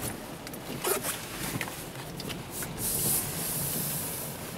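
Road noise inside a car moving on wet roads, with a louder hiss from about three seconds in that lasts over a second, and a few light knocks as the camera is handled.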